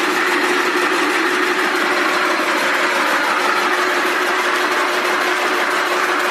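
Rope braiding machine running steadily: a fast, even mechanical rattle over a constant hum.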